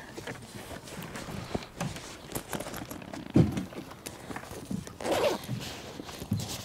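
Bags and gear being handled: rustling and scattered knocks, with one louder thud about three and a half seconds in.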